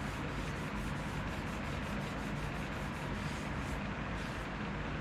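A cloth rubbing wood stain onto a wooden tool handle in quick back-and-forth strokes, about four a second, with a short pause near the end, over a steady background hum.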